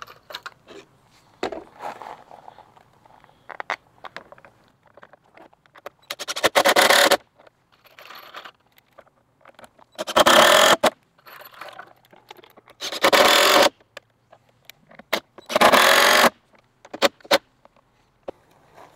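Cordless DeWalt drill with a 10 mm socket driving lag bolts through a plastic bracket into pre-drilled wood. It runs in four short bursts of under a second each, with small clinks of handled hardware between them.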